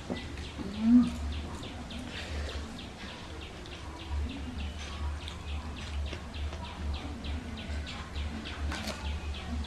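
A bird chirping over and over, about three or four short chirps a second, in the background. Underneath is a low, uneven rumble, and there is one short, loud low sound about a second in.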